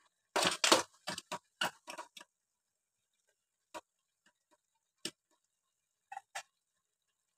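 Metal ladle knocking and scraping against an aluminium pot while stirring cooked fusilli pasta: a quick run of clicks and knocks in the first two seconds, then a few single taps.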